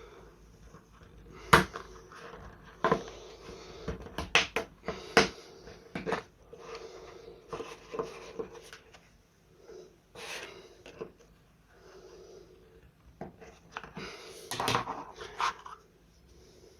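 Hand-handling clicks, snaps and scraping of a plastic car main relay case being opened to look inside: a string of separate sharp clicks and knocks with lighter rustling between them.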